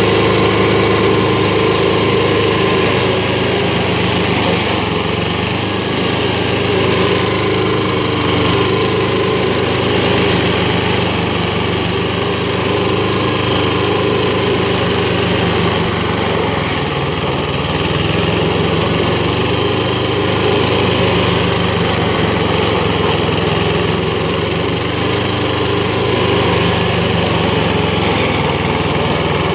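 Predator 28RX tracked stump grinder's engine running steadily at working speed as its cutter wheel grinds down a long-dead oak stump, which cuts fairly easily.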